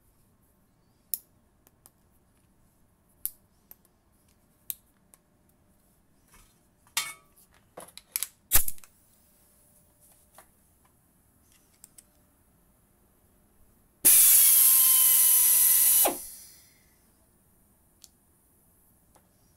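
Industrial pneumatic screwdriver: scattered sharp metal clicks as the tool is handled and adjusted, then the screwdriver run free for about two seconds, with loud air hiss and a high whine, spinning down after release. It starts running again at the very end.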